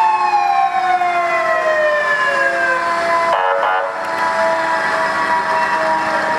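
Fire engine siren winding down, its pitch falling slowly over a few seconds. A short horn blast about halfway through.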